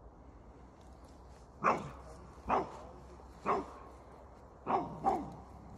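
A Beauceron barking: five barks beginning about a second and a half in, roughly one a second, with the last two close together.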